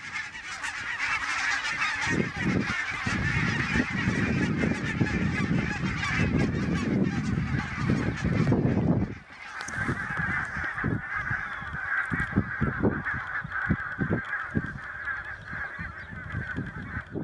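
A large flock of barnacle geese in flight, a dense chorus of short barking flight calls that keep the flock in contact. The calls drop out briefly about nine seconds in and then resume. A low rumble sits under them in the first half.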